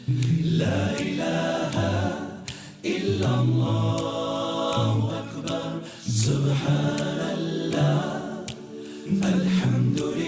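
Background a cappella vocal music: layered voices singing long held notes, with no instruments.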